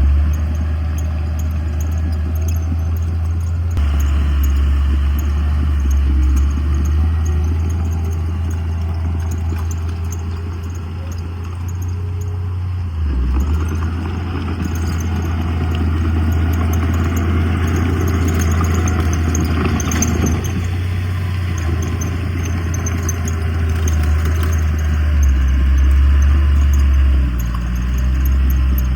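Heavy diesel earthmoving machinery running with a steady low engine drone; about halfway through, a rougher clattering noise rises over it for several seconds and then eases off.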